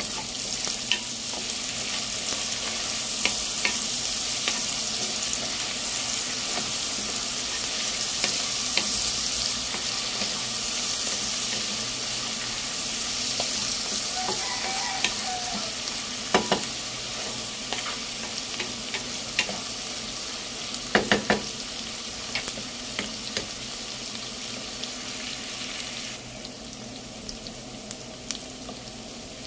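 Pork, onions and garlic sizzling in hot oil in a nonstick pot, stirred with a wooden spatula that clicks against the pan a few times. Near the end the sizzle softens as coconut milk begins to pour in.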